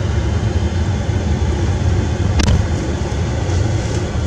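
Vehicle engine and road noise heard from inside the cab while driving slowly, a steady low rumble, with a single sharp click about two and a half seconds in.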